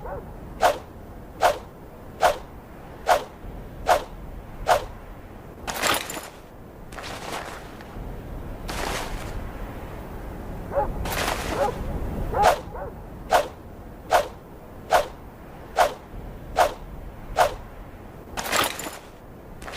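A yatagan sword repeatedly swished through the air. There are runs of short, sharp swishes about every 0.8 s, and between them a few longer, broader sweeps.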